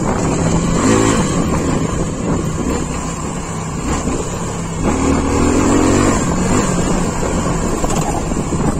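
Suzuki V-Strom 250 motorcycle engine running under throttle while the bike rides over a rough dirt track, getting louder about halfway through as the rider opens it up.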